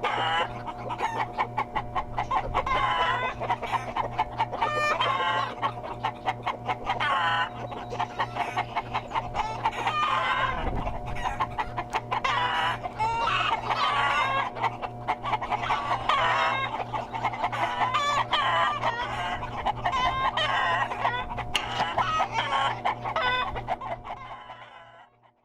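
A large crowded flock of chickens clucking and calling over one another, with a steady low hum underneath; it all fades out near the end.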